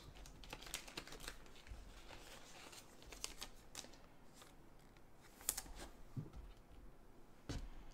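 Quiet rustling and light clicking of sports cards being handled and slid against clear plastic card holders, with a few sharper clicks in the second half.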